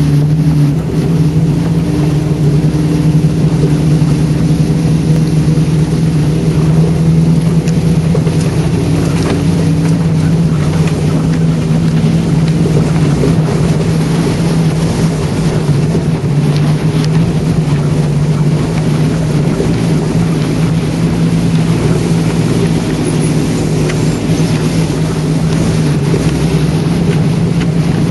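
Off-road vehicle's engine running in a steady low drone as it crawls along a rough dirt track, heard from inside the cab, with small rattles and clicks from the bumpy ground.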